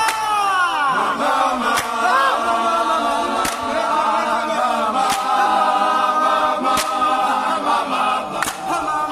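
A group of men singing and chanting together in unaccompanied chorus, with a sharp beat about every second and a half.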